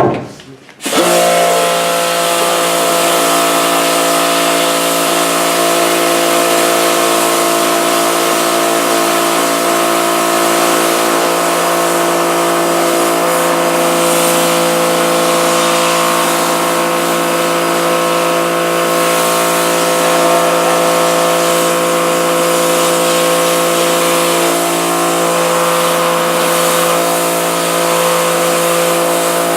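Pressure washer running, a steady motor hum under the loud, even hiss of the water jet, starting suddenly about a second in as the spray begins. The jet is blasting old emulsion out of a screen-printing screen.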